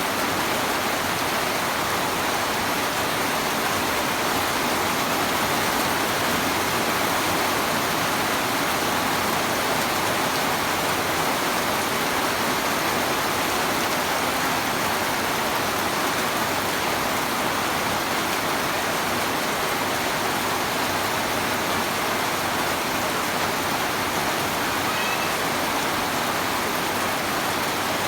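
Heavy rain drumming on a corrugated zinc sheet roof: a dense, steady hiss of drops with no let-up.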